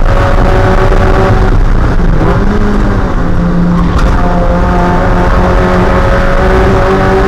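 Spec Miata's 1.8-litre four-cylinder engine running hard at race pace. The engine note dips about two seconds in, then climbs slowly as the car pulls.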